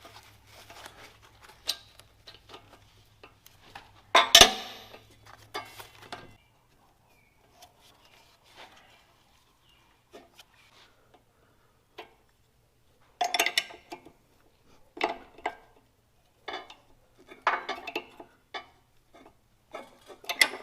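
Steel wrenches clinking and tapping against the backhoe's hydraulic hose fittings as the lines are loosened and moved, in scattered irregular clicks with one louder clank about four seconds in.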